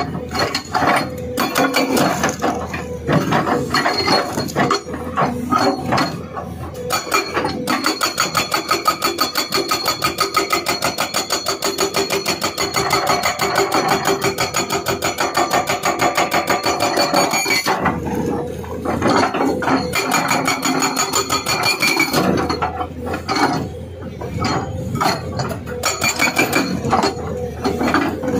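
SHS 81 hydraulic breaker on an excavator hammering rock with rapid repeated chisel blows. The blows come unevenly at first, settle into a long run of fast, even strikes through the middle, then turn uneven again near the end.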